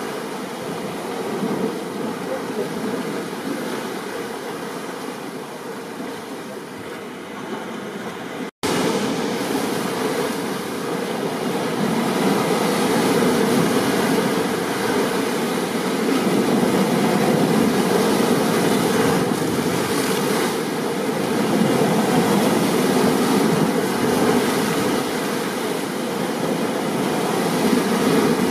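Steady rushing noise of rain and stormy ocean surf, swelling gently. About eight and a half seconds in it cuts out for a split second and resumes a little louder, like a splice in a looped recording.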